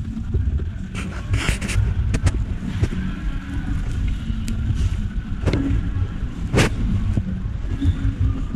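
Uneven low rumbling noise with a few short rustles or clicks, about a second in, after two seconds, and twice between five and seven seconds.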